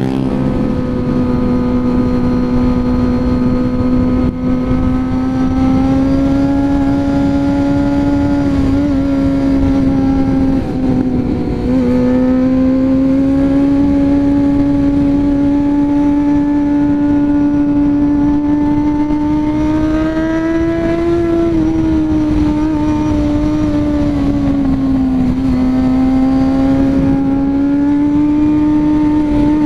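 Honda CB400 Super Four's inline-four engine pulling uphill in second gear, held at high revs with a steady, high engine note. The pitch drops briefly about twelve seconds in, rises around twenty seconds in, sags a few seconds later and climbs again near the end.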